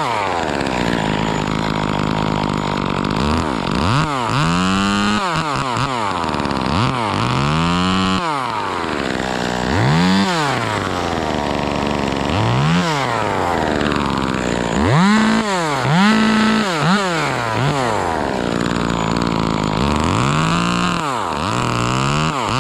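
Chainsaw running as the top of a conifer is cut out, its engine speed rising and falling repeatedly, about eight times, as the throttle is worked through the cut.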